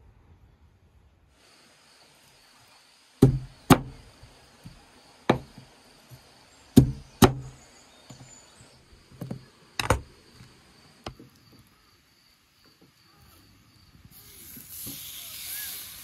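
Kitchen knife chopping through fresh corn cobs onto a wooden cutting board: a series of sharp, unevenly spaced knocks. Near the end, a steady hissing sizzle as a beef steak cooks in a grill pan over a fire.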